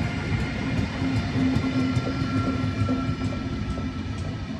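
DSB Twindexx double-deck passenger train rolling past the platform: a steady rumble of wheels on rail with a held electric whine and faint clicks. It fades slowly as the train moves along.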